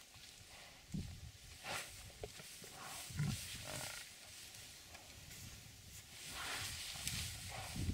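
Lions and an African buffalo fighting: short, low growls a couple of seconds apart as the lions hold the buffalo down.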